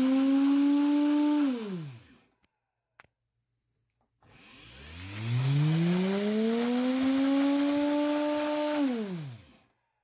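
Three-phase induction motor from a Whirlpool washing machine spinning unloaded on a variable frequency drive: a whine with a hiss holds at top pitch, then falls away as the drive brakes it to a stop in about a second. After a faint click it spins up again with a rising whine over about three seconds, holds, and brakes to a stop once more near the end.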